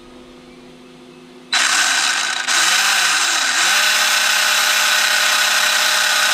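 Brushless motor and drivetrain of an Arrma 3S BLX RC car running on a 3D-printed spur gear. A low hum gives way, about a second and a half in, to a sudden loud spin-up that dips and rises once, then holds steady at full throttle.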